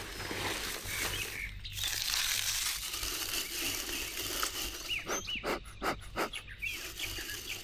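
Rustling and crinkling around a freshly lit bee smoker packed with pine needles, with a hiss about two seconds in and a cluster of short rustles near the end. Small birds chirp in the background.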